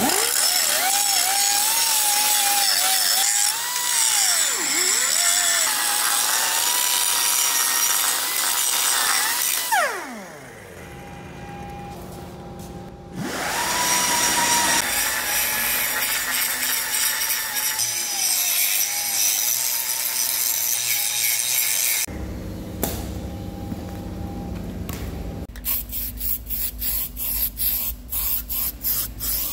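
A handheld power tool running on metalwork, its motor pitch wavering as the load changes. It spins down about ten seconds in, starts up again a few seconds later, and near the end gives way to a low hum and then a rapid pulsing of about four beats a second.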